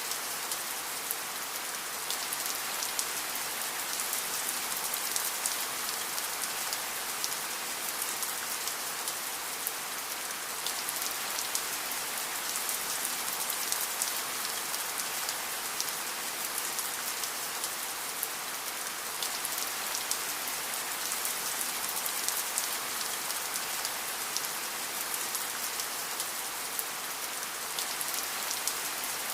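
Steady rain falling, an even hiss of many fine drop impacts, with no thunder.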